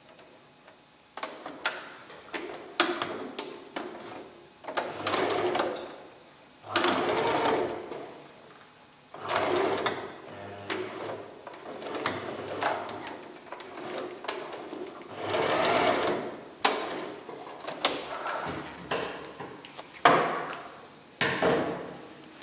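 Electric sewing machine stitching a seam in short stop-start runs of about a second each, around ten of them, with sharp clicks in the pauses between.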